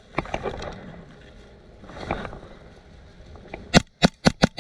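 Airsoft gun shots: a few scattered shots, then a quick burst of about five shots near the end.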